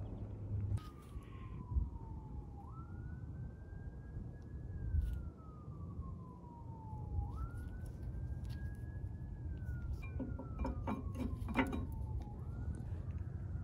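An emergency-vehicle siren wailing, its pitch leaping up and then sliding slowly down, over and over about every four to five seconds, above a steady low rumble. Light metallic clicks of brake parts being handled come near the end.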